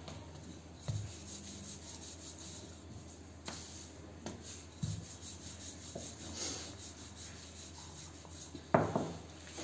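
Paratha dough being handled and rolled with a wooden rolling pin on a floured countertop: soft rubbing with a few light knocks, the sharpest knock near the end.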